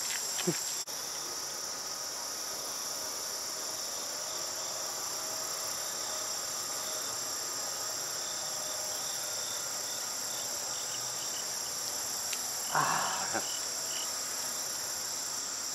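Steady high-pitched chorus of insects. Near the end a brief louder noise cuts through it.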